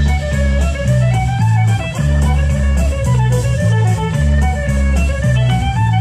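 Loud dance music played by the DJ over the sound system, with a bass line, a melody and a steady drum beat.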